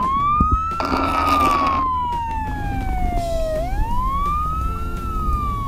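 Electronic siren wailing: each cycle rises quickly and falls slowly, repeating about every three and a half seconds. A short hiss comes in about a second in.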